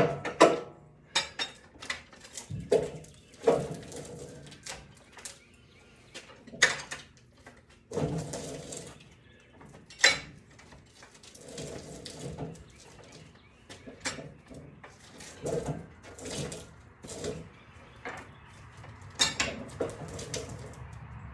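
Irregular knocks and clatter of objects being handled: a dozen or more sharp hits, unevenly spaced, with quieter rustling between them.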